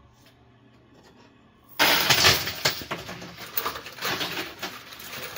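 Quarters and metal-rimmed chips clattering and clinking together inside a coin pusher machine, starting suddenly about two seconds in as a rush of many sharp clinks.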